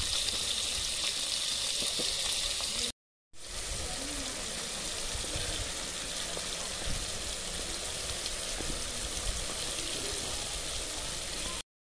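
Chopped tomatoes and onions frying in oil in an aluminium pot, a steady sizzle. It breaks off briefly about three seconds in.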